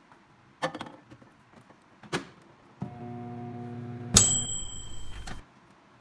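Two handling clicks, then a microwave oven running with a steady hum for about two and a half seconds. Partway through there is a sharp, louder onset with a high ringing tone, the loudest moment. Everything cuts off suddenly.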